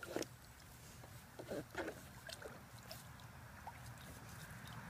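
Shallow water in a plastic kiddie pool splashing and sloshing as a puppy wades through it, with a few short splashes near the start and about a second and a half in, then fainter.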